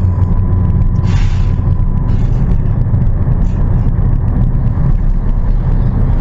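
Ford Fiesta driving, heard from the cabin: a steady low rumble of engine and road noise, with a brief hiss about a second in.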